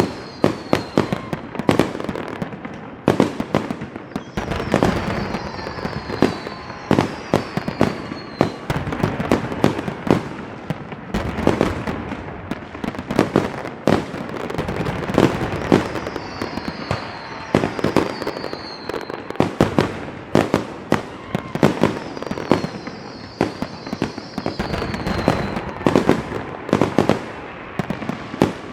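Fireworks going off continuously: many sharp bangs over a steady crackle, with short high whistles falling in pitch every few seconds.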